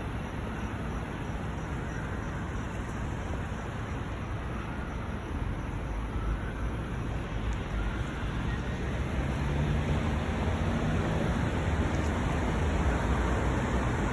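Steady roadside traffic noise, a low rumble that grows somewhat louder in the second half.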